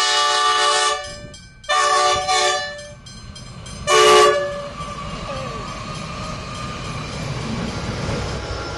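Diesel locomotive's multi-tone horn sounding a chord in three blasts: one that cuts off about a second in, a second shorter one, and a brief, loudest toot about four seconds in. After it comes the steady rumble of a train running past.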